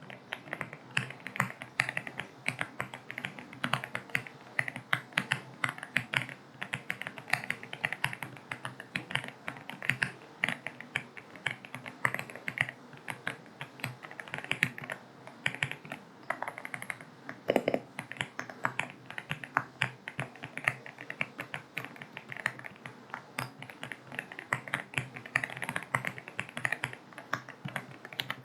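Typing on an AULA F75 mechanical keyboard with linear switches: a fast, irregular stream of key clicks, with one heavier, deeper knock about two-thirds of the way through.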